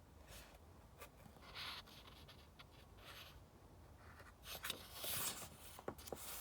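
Paper rustling as a book's pages are handled and a page is turned: a few soft swishes, the fullest about two-thirds of the way in, followed by a couple of small sharp taps near the end.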